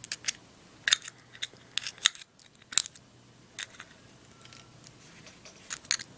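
Irregular small, sharp clicks and taps of metal on metal as rayon balls are packed into a Zippo lighter's insert, about a dozen in all, some close together.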